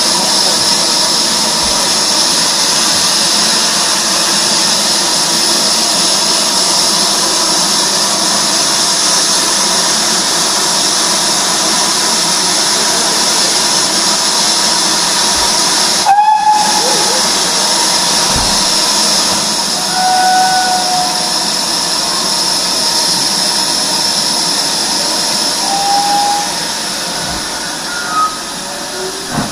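Steam locomotive letting off steam: a loud, steady hiss.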